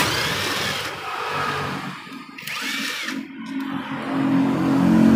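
A hand spanner working a bolt on a motorcycle's clutch cable bracket, with metal clicks and scraping and a short squeak about two and a half seconds in. From about four seconds in, a steady engine hum grows louder.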